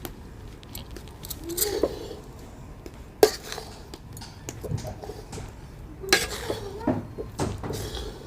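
Kitchen utensils clinking: a spoon knocking and scraping against a bowl, with a few separate sharp clinks, the loudest about three seconds in.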